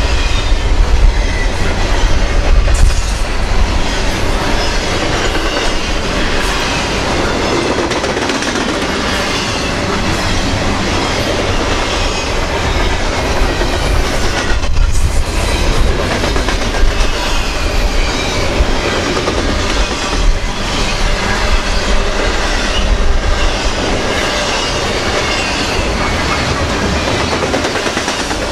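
Double-stack intermodal freight train's well cars rolling past at speed: a steady rumble and rush of steel wheels on the rails, with clickety-clack over the rail joints.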